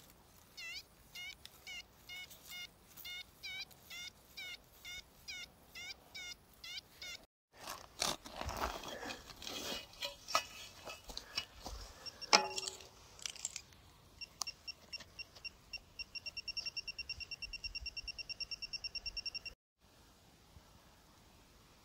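A metal detector sounds its target tone again and again, about twice a second, as the coil is swept over a buried find. Then soil is dug and scraped with a sharp knock, and a handheld pinpointer probed in the hole beeps in rapid pulses that quicken before cutting off suddenly.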